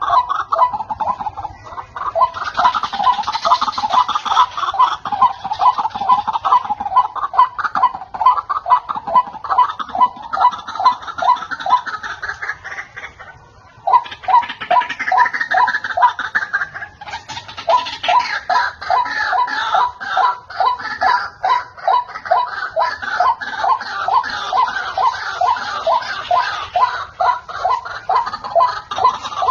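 White-breasted waterhen (ruak-ruak) calling, a fast run of repeated cackling notes several a second, pausing briefly about halfway through and then starting again.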